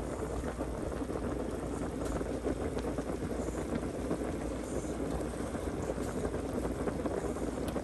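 Pot of pasta water at a full rolling boil on high heat, bubbling steadily, with a steady low hum underneath.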